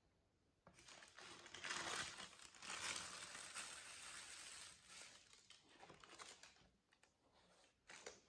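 Tissue paper crinkling and rustling as sneakers are unwrapped and handled in a cardboard shoebox. It starts about a second in, is densest for the next few seconds, then dies down, with one more short rustle near the end.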